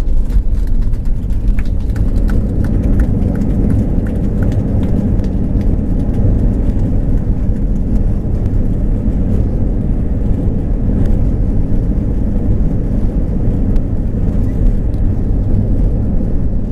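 Airbus A320 cabin noise as the airliner rolls along the runway after landing: a steady low rumble of engines and wheels on concrete. Faint, regular ticks sound about two to three times a second during the first few seconds.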